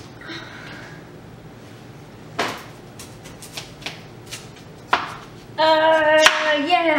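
Chef's knife sawing and rocking through a tough spaghetti squash on a plastic cutting board, giving scattered knocks and clicks. Near the end a woman's voice holds one long note, the loudest sound, just as the squash gives way.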